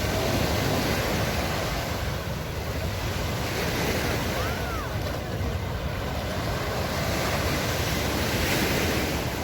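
Surf washing onto a sand beach, mixed with wind buffeting the microphone as a steady low rumble.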